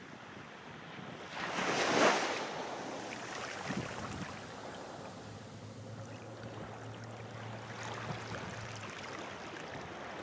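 Ocean waves washing, one surge swelling and falling away about two seconds in, then a steady softer wash with a faint low hum in the middle.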